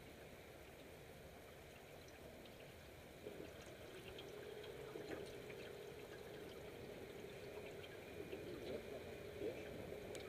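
Faint trickling and lapping of river water, with small scattered ticks, and a steady low hum that comes in about three seconds in.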